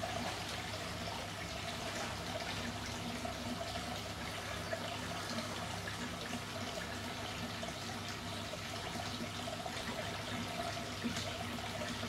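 Steady trickle of running water, an even unbroken wash of sound.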